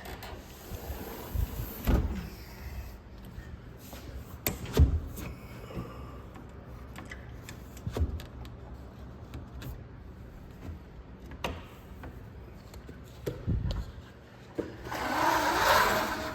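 Window blinds and sliding windows being worked by hand: scattered knocks and thumps, then a longer sliding rush near the end.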